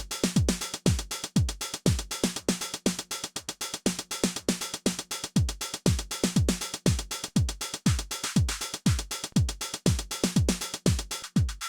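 Behringer RD-9 drum machine playing a programmed beat: a kick drum with a quickly falling pitch on every hit, with short, bright hi-hat ticks between the kicks.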